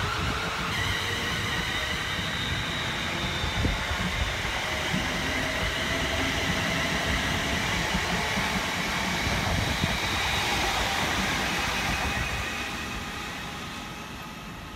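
London Northwestern Railway Class 350 Desiro electric multiple unit pulling away, its traction motors whining in several tones that slowly rise in pitch over the rumble of wheels on rail. The sound fades over the last few seconds as the train draws off.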